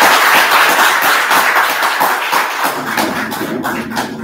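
Audience applauding: dense, loud clapping that thins out near the end.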